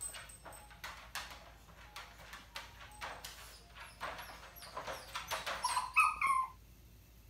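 Young puppy in a crate whimpering and yipping: a string of short sharp cries, then a higher whining cry about six seconds in that cuts off suddenly.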